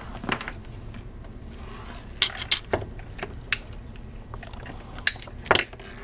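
Irregular small clicks and taps as hands handle a shielded Cat6 cable and push an RJ45 connector onto its wires, the loudest about five and a half seconds in.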